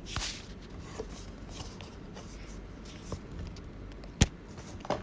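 Light handling noises of a phone and fitness band: scattered soft ticks and rubs, with one sharp tap or click about four seconds in.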